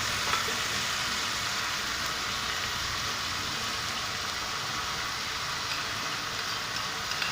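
Chopped vegetables frying in hot oil in a pan, a steady sizzle, with the soy sauce just added.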